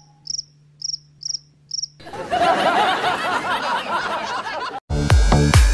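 Cricket-chirp sound effect, five short high chirps about twice a second, cut off about two seconds in by a man laughing hard. Near the end an electronic dance track with a heavy beat comes in.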